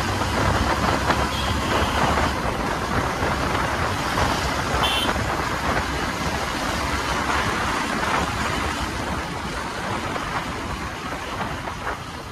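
Motorcycle being ridden through traffic: a steady, loud rush of wind and road noise with the engine running underneath, getting quieter near the end. A short high beep sounds once about five seconds in.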